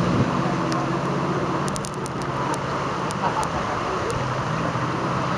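Steady rush of the flood-swollen Hoosic River's fast brown water, with a low hum running underneath.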